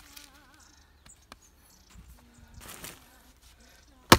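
An axe strikes a log of firewood once, a single sharp crack near the end, after a few seconds of quieter sounds between strikes.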